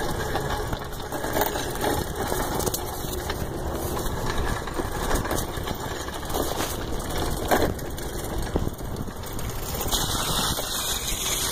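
Steady rushing wind and rolling noise on a phone's microphone while riding a bicycle, with a couple of sharp knocks from bumps or handling.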